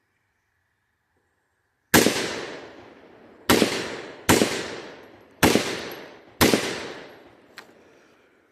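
Five rifle shots fired at an uneven pace over about four and a half seconds during a timed qualification string. Each shot is loud and sharp, followed by a long echo that fades over a second or more.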